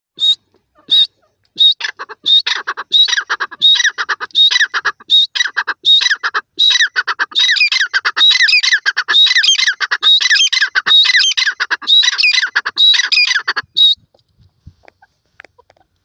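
Grey francolin calling: a long run of loud, high squawking calls, spaced at first, then quickening about halfway into an almost unbroken repeating chain, which stops abruptly a couple of seconds before the end.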